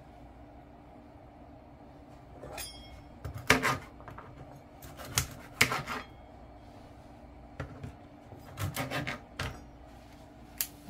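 Kitchen knife cutting through asparagus stalks on a plastic cutting board. Crisp cuts and knocks of the blade on the board come in irregular clusters, starting about two seconds in.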